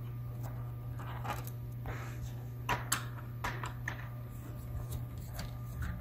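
Small screwdriver turning tiny screws out of a Lenovo IdeaPad 100's plastic chassis: scattered light clicks and scrapes, over a steady low hum.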